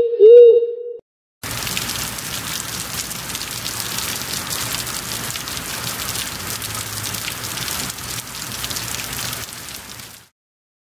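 Rain sound effect: an even crackling patter of rain that starts about a second and a half in and cuts off abruptly near the end. At the very start, a pitched hooting call from the previous effect ends.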